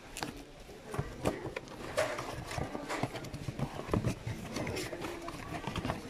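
Irregular clicks, knocks and rustles of a boxed plastic food container being unpacked and its lid handled.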